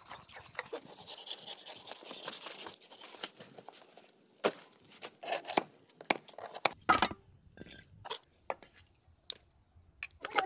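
Knife slicing through a ray's tough skin and flesh, a rapid scratchy tearing scrape, followed a few seconds in by a series of sharp knocks as the knife chops the meat into chunks on a wooden block.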